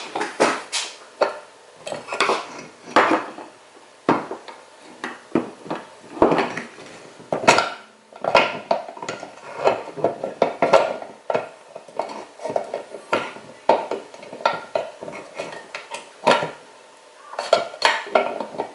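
Irregular clicks, clinks and short rattles of metal and plastic parts of a VW O2J gear shifter assembly being handled and pried apart during disassembly.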